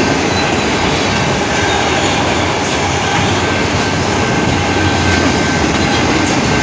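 Canadian Pacific freight train rolling through a grade crossing, a steady loud rumble and rattle of its cars on the rails.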